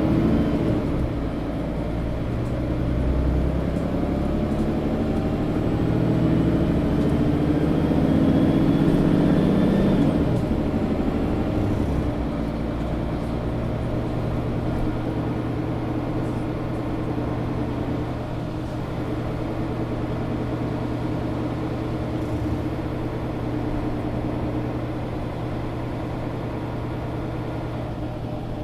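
Interior of a Mercedes-Benz Citaro G articulated city bus under way: it accelerates with a whine rising in pitch for about ten seconds, then settles into a steady run.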